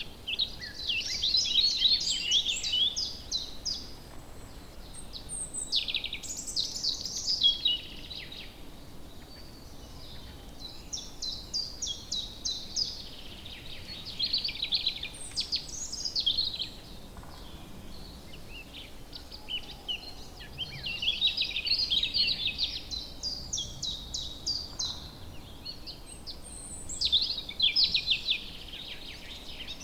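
Songbirds singing in woodland: several rapid trilled and chirping phrases, one after another every few seconds, over a faint steady background hiss.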